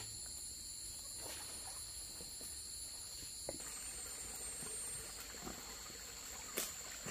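Insects in a steady, high-pitched chorus holding two or three fixed pitches, with a few faint clicks and one sharper click about six and a half seconds in.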